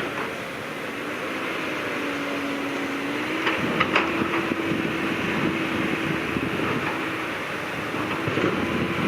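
Diesel engine of heavy earthmoving machinery running steadily under load, its hum stepping up slightly in pitch a few seconds in, with a couple of sharp knocks about four seconds in.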